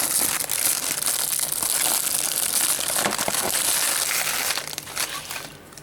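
Plastic shrink-wrap on a Blu-ray case crinkling and crackling as it is pulled off and crumpled by hand, with a dense run of small crackles that eases off about four and a half seconds in.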